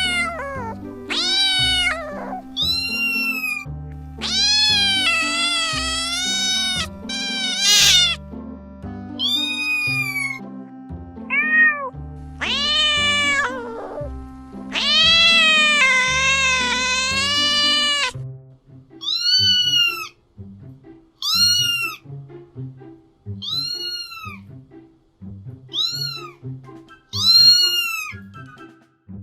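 A domestic cat meowing again and again over background music, the earlier meows long and drawn out. From about two-thirds of the way in, shorter meows come about one a second.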